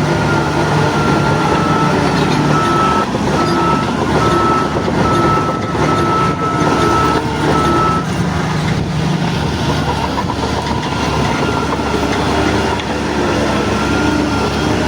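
Crawler bulldozer working: its diesel engine runs steadily under load while the steel tracks clatter. A high beeping tone sounds in short repeated dashes for a few seconds near the middle.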